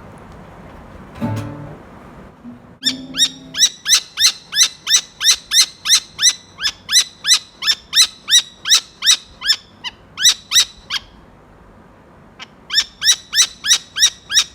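Saker falcon calling in a rapid series of harsh, repeated cries, about three a second, each dropping slightly in pitch. A first bout starts about three seconds in, breaks off for a couple of seconds, and a second bout starts near the end.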